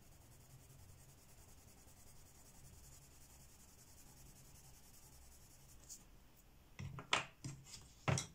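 Derwent Lightfast coloured pencil shading a swatch on paper, a faint, steady scratchy rubbing. Near the end come a few sharp clicks and knocks.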